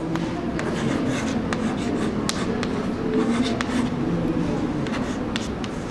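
Chalk writing on a chalkboard: a string of short taps and scratches from the chalk, over a steady background hum.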